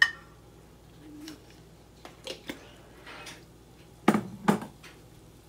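Kitchen clatter: a wooden utensil set down against a nonstick frying pan with a sharp click and a short ring, then a few lighter knocks and two louder knocks about half a second apart near the end.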